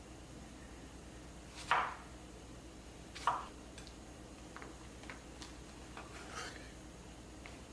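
Household handling sounds: two louder knocks about a second and a half apart, then several light clicks and taps of objects being set down or moved.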